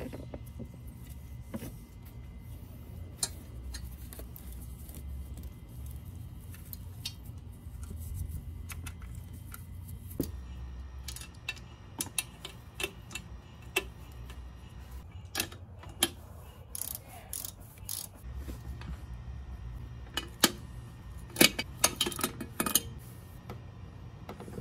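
Light metallic clicks and clinks of hand tools and parts being worked in an engine bay, scattered from about ten seconds in, with a cluster of sharper ones near the end, over a low steady hum.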